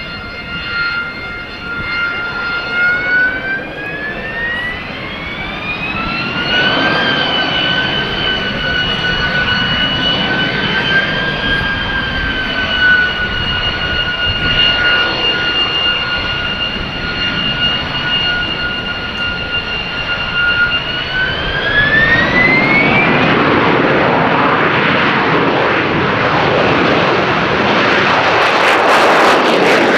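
AV-8B Harrier II's Pegasus turbofan running with a high, steady whine that rises in pitch twice, a few seconds in and again about two-thirds through. After the second rise it gives way to a louder, steady jet roar.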